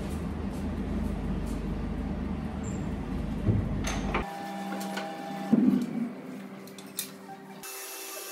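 Electric potter's wheel motor running with a steady low hum and a few light clicks. About four seconds in, the sound changes abruptly: the low hum drops out, leaving fainter steady tones.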